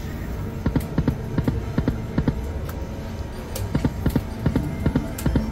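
Dancing Drums slot machine playing its reel-spin sound effects: a run of sharp, uneven drum-like taps, a few a second, with the machine's music.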